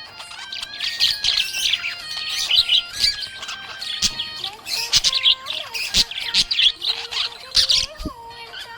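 Budgerigars chirping and warbling rapidly and continuously, over background music with held melodic notes.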